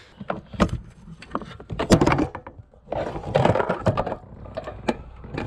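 Irregular knocks, thuds and bangs, a few in each second, with rustling between them; the loudest bang comes about two seconds in.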